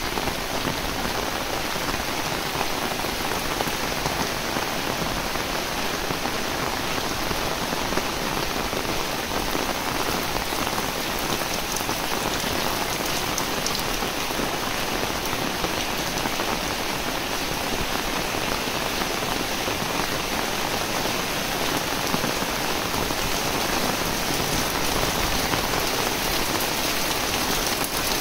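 Heavy rain falling steadily, an even hiss of countless drops that holds level throughout.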